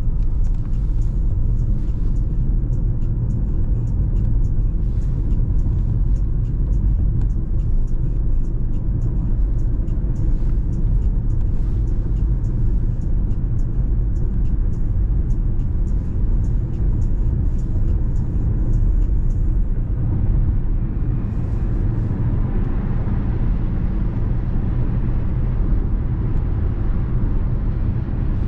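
Car driving at road speed: a steady low rumble of road and engine noise, with a hiss that builds over the last several seconds and faint light ticking before it.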